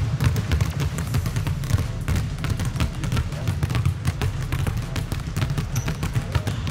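Basketballs dribbled two at a time on an indoor court floor in a two-ball dribbling drill, several players at once: a fast, unbroken stream of overlapping bounces.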